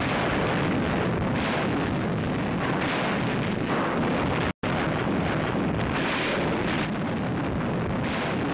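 Battle sound effects: dense, continuous noise of artillery explosions, with a few louder blasts. The sound cuts out for a split second about four and a half seconds in.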